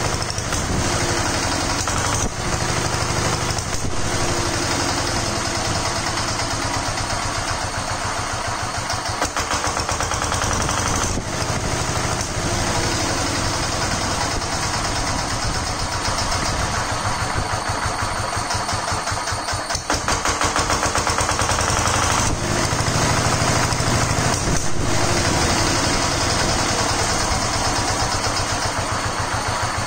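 Single-cylinder diesel generator engine running steadily with LPG gas fed into its air intake alongside the diesel, a rapid even firing beat. A few sharp cracks stand out over the running engine.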